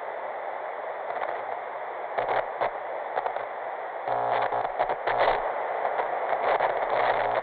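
TV or radio static sound effect: a steady hiss like a detuned set, broken every second or two by crackling, buzzing glitch bursts.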